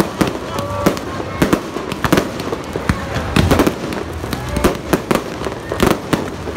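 Fireworks display: aerial shells bursting close overhead in a rapid, irregular run of sharp bangs, about two a second.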